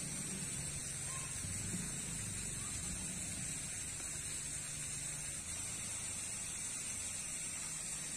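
Outdoor riverbank ambience: a steady high-pitched hiss with a faint low hum underneath, unchanging throughout.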